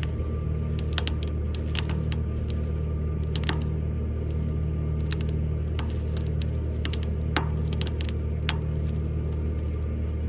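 A diesel engine runs steadily, with scattered sharp clicks and creaks from the new 5/8-inch swaged steel winch cable as it draws tight around the John Deere 3325 winch drum, pulled by a skid steer backing up.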